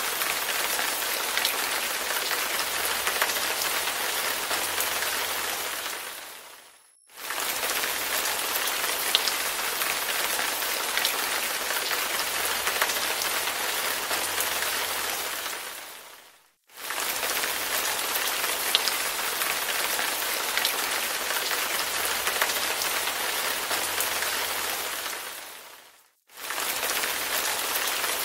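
Steady rain falling on a surface, with scattered tiny drop ticks. Three times, about every nine to ten seconds, it fades down to silence over a second or so and then comes back abruptly, the mark of a looped rain recording.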